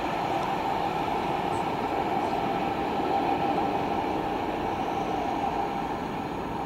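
Diesel-hauled train passing at low speed on curved track: the locomotive's engine runs steadily under the rolling noise of wheels on the rails.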